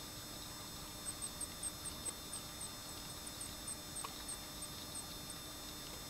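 A small bird calling: a run of about fifteen short, thin, high chirps at about four a second, starting about a second in and stopping shortly after five seconds.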